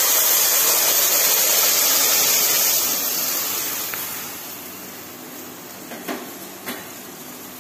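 Boiling water poured onto hot oil and sautéed onions in an aluminium kadai: a loud steaming hiss and sizzle that dies away after about four seconds. Two light taps near the end.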